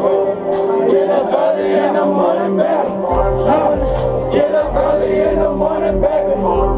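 Loud trap music with a steady synth melody and singing over it; a heavy, booming bass comes in about three seconds in.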